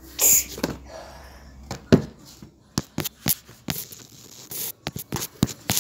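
Handling noise of a phone being moved around close to the floor: irregular clicks, knocks and rubbing against the microphone, with a short hiss about a quarter second in and a sharp knock about two seconds in.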